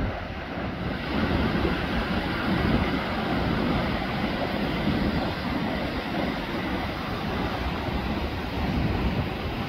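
Surf breaking and washing up a sandy beach, heard as a steady wash of noise, with wind rumbling on the microphone.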